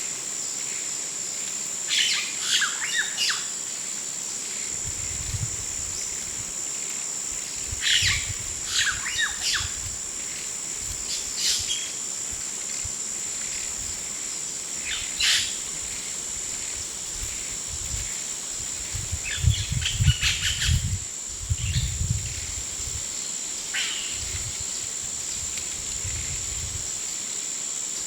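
Jungle ambience: a steady, high-pitched insect drone, with birds calling in short bursts of chirps every few seconds. Intermittent low rumbles come and go beneath them.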